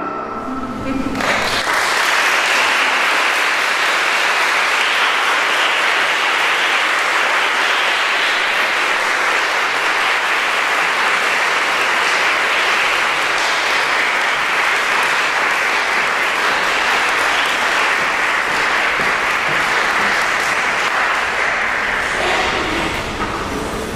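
Audience applauding, starting about a second in, holding steady, then thinning near the end.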